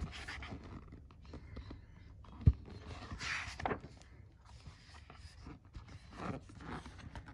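Paper pages of a hardback picture book being handled and turned, rustling softly, with one sharp tap about two and a half seconds in.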